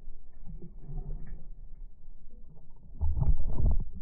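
Muffled water sloshing and gurgling over a camera as it bobs at the sea surface, going under and coming back up, with a louder rush of water about three seconds in.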